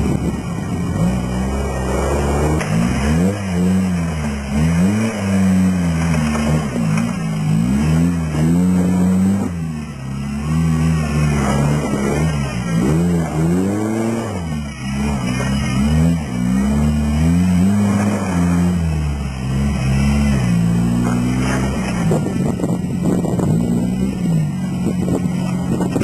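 Toyota LJ70 off-roader's engine revving up and down over and over, its pitch climbing and dropping every second or two.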